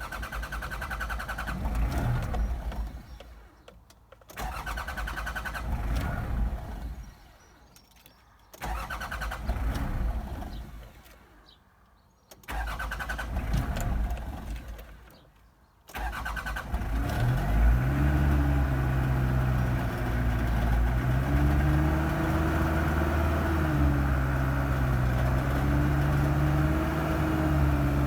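Mitsubishi 4D56 four-cylinder diesel engine cranked on its starter four times without catching. On the fifth try, about sixteen seconds in, it fires and settles into an idle whose pitch wavers: the rough idle of this engine.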